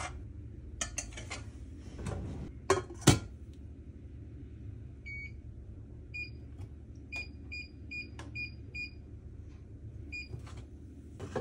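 A few knocks of a pot and utensils, the loudest about three seconds in. Then an electronic kitchen appliance's touch-control panel sounds a run of short high beeps, about three a second, with a couple more near the end, as the cooking heat or timer is set.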